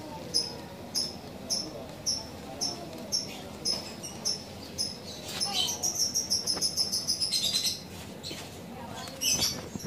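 High-pitched animal chirps repeating about twice a second, breaking into a fast trill of chirps a little past the middle.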